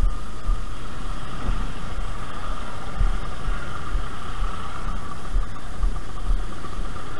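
Motorcycle engine running at low speed while creeping through stop-and-go traffic, a steady rumble heard from the rider's helmet camera.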